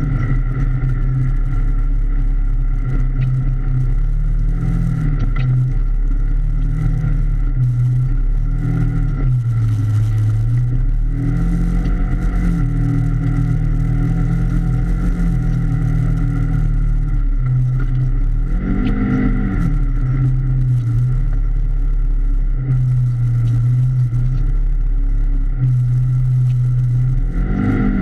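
Polaris RZR XP 1000 side-by-side's 999 cc parallel-twin engine driving under way, heard from inside the cab, its speed rising and falling as the throttle is worked. It revs up briefly about two-thirds of the way through and again near the end.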